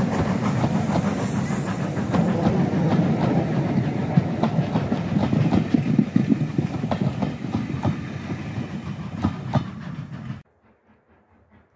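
Passenger coaches of a steam-hauled train rumbling past at close range, their wheels clattering over the rail joints. The sound stops abruptly about ten seconds in.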